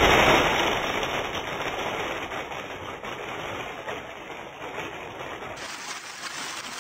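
A shower of small beads from a burst balloon pattering and bouncing on a tabletop: a dense patter of tiny hits that starts loud and slowly thins out, growing louder again near the end.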